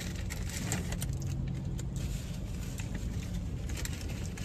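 Paper burger wrapper crinkling and rustling in irregular bursts as it is unwrapped, over a low steady hum.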